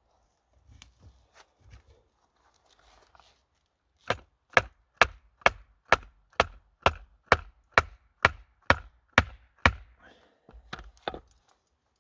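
Wood being chopped: a few light knocks, then a steady run of about thirteen sharp chops, roughly two a second, ending in a few lighter taps.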